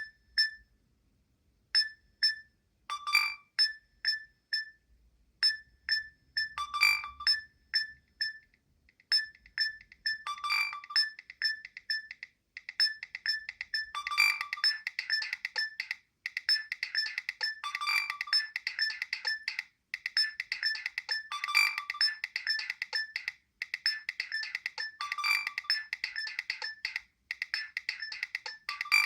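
A Nokia 7250i plays one of its preloaded polyphonic ringtones: a synthesized melody of short, quick notes with a stronger accent every few seconds. About twelve seconds in it fills out into a busier, continuous arrangement, then stops near the end.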